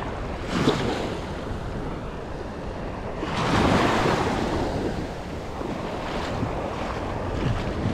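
Small waves washing in on a sandy shore, with wind buffeting the microphone; one wash swells up louder about three seconds in.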